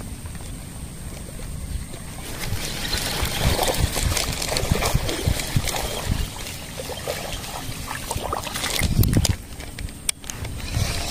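Water splashing and sloshing, with low knocks and rumbles of wind and handling on the microphone, loudest about nine seconds in.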